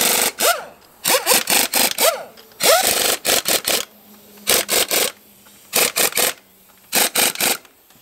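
Pneumatic impact wrench run in short repeated bursts, in quick groups of two to four, as wheel lug nuts are run on and off.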